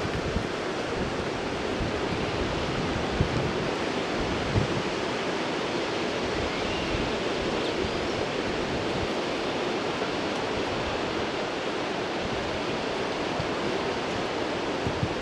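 Steady rushing noise of wind and sea surf along a seafront, with a few low thumps of wind buffeting the microphone.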